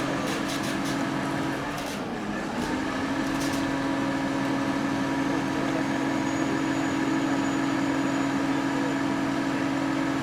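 A vehicle engine running steadily with a droning hum. Its pitch dips briefly and settles again about two seconds in, and a few light clicks come early on.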